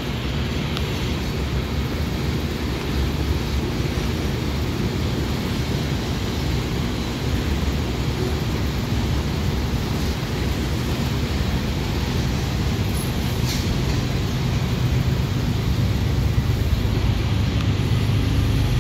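Freight train cars rolling past: a steady noise of steel wheels on the rails, growing a little louder near the end.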